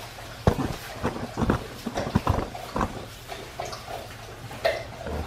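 Adult Australian Shepherd eating from a plastic bowl: irregular knocks and clicks of kibble and bowl, with snuffling between them.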